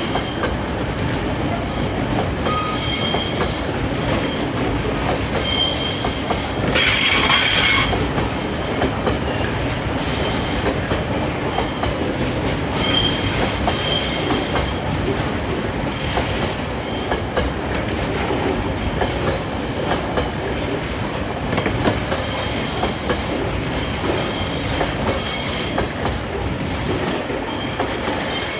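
Long rake of loaded open box freight wagons rolling past at speed: a steady rumble and clatter of wheels over the rails, with high-pitched wheel squeals coming and going every few seconds. The loudest squeal comes about seven seconds in and lasts about a second.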